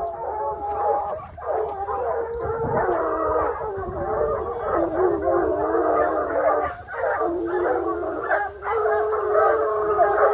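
A pack of hunting hounds in full cry, many overlapping baying voices sounding together with only brief lulls: the pack giving tongue on the trail of a wild boar.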